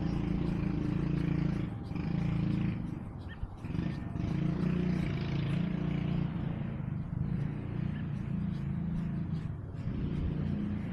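A cat purring: a continuous low buzz in long stretches with short breaks every couple of seconds.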